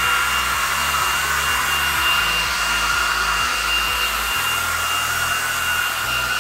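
Kärcher cordless stick vacuum cleaner running steadily as its floor head is pushed over a carpet mat: a steady high motor whine over the rush of air.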